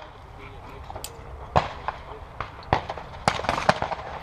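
Shotgun reports at a trap range: a sharp shot about a second and a half in, then several more bangs and clicks in the second half.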